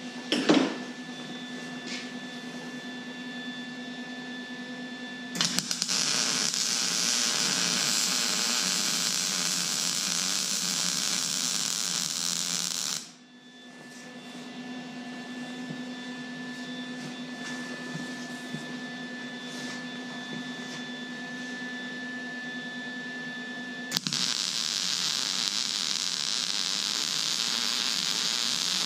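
A Lincoln 180HD wire-feed welder's arc crackling and sizzling steadily as a root pass is laid on thick steel. It burns for about seven seconds, stops suddenly, and strikes again a few seconds before the end. Between the runs there is a steady electrical hum, and right at the start comes a brief loud knock.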